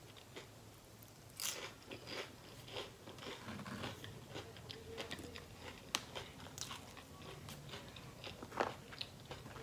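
Close-miked chewing and crunching of a battered, deep-fried onion ring, faint, with irregular crisp crunches; a few are sharper about a second and a half in, near six seconds, and shortly before the end.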